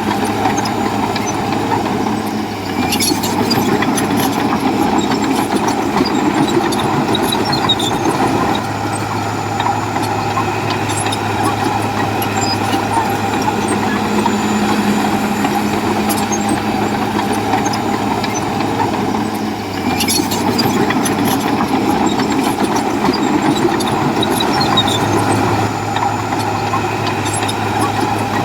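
Diesel engine of heavy earthmoving machinery running steadily, its pitch and load shifting several times, with sharp metallic clanks a few seconds in and again about two-thirds of the way through.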